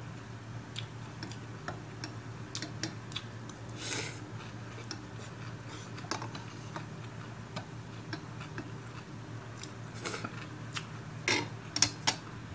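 Metal spoon and chopsticks clinking and scraping against a ceramic bowl, scattered light taps with a few louder clinks near the end, over a steady low hum.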